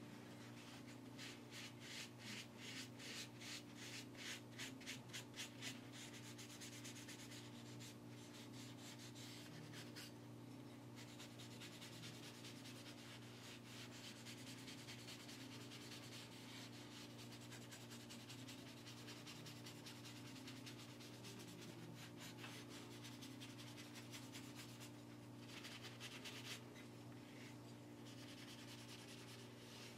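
A cloth rubbing oil into a carved wooden spoon, faint. Soft strokes come about twice a second over the first few seconds, then the rubbing goes on more evenly.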